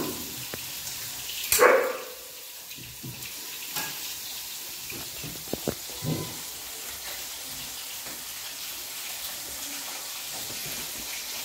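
Fish sizzling in oil in a frying pan, a steady hiss. About a second and a half in, one short loud cry falls in pitch, with a fainter one about six seconds in and a few light clicks just before it.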